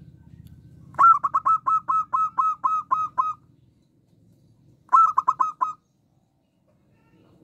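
Zebra dove (perkutut) giving its rapid staccato call: a quick run of about eleven short clipped notes over two seconds, then about four seconds in a shorter run of five.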